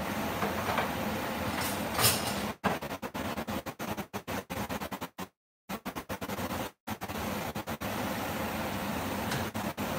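Steady rushing noise with a single knock about two seconds in. In the middle the sound cuts out again and again, dropping to silence twice.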